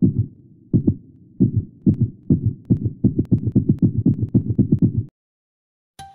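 Heartbeat sound effect: deep double thumps that speed up from about one beat a second to several a second, then cut off suddenly about five seconds in. A musical note comes in right at the end.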